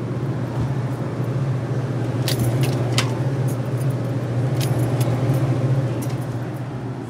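Steady low hum of a store's glass-door drink cooler, its refrigeration compressor and fans running, with a few light metallic clinks and jingles between about two and five seconds in.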